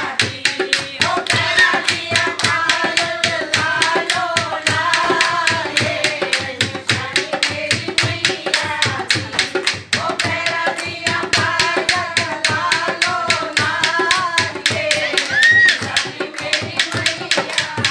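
A group of women singing a Mata bhajan, a devotional song to the Mother goddess, in unison, with steady, fast hand clapping that keeps the beat.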